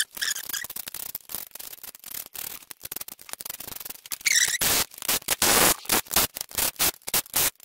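Hand ratchet clicking quickly as the bolts joining the transfer case halves are run down, turning much louder and denser about halfway through.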